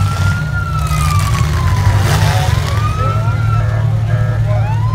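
Demolition derby car engines rumbling under a siren that wails up and down in slow sweeps of about two seconds each, with a brief burst of noise about two seconds in.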